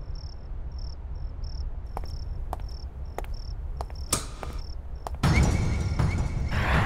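Crickets chirping in short, evenly repeated high chirps, with a few sharp clicks in between. About five seconds in, a loud low rumble with a rushing noise comes in abruptly.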